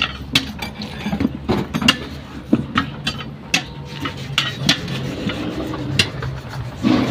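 Steel tyre levers clinking and scraping against an alloy wheel rim as the tyre bead is prised over the rim by hand, with irregular sharp metal knocks.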